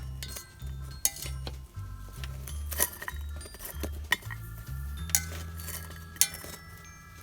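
Metal cooking pot and lid clinking and knocking a few sharp times as the pot is opened to check the bread. Background music with a steady, shifting bass line plays underneath.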